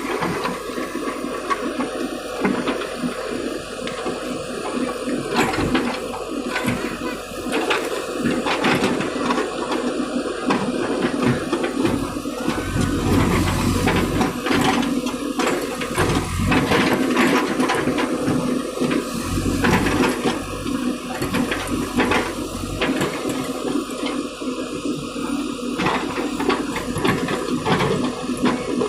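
JCB 3DX backhoe loader's diesel engine running steadily at work, its level rising and falling a little, with a dense noisy wash over the engine's steady tones.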